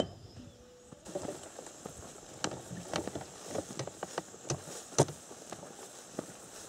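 Footsteps swishing and crunching through tall grass: irregular rustles and crackles, with one sharper knock about five seconds in.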